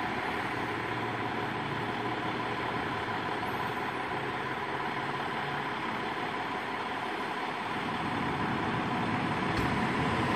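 Fire truck's diesel engine idling, a steady running sound that grows louder near the end.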